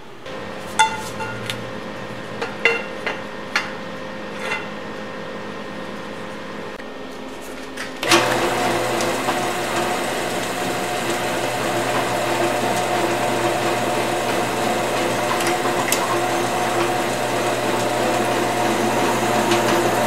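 A few sharp metal clinks of steel tubing being handled over a low steady hum. About eight seconds in, a louder, steady drill press takes over, its bit drilling into a steel bar held in the drill press vise.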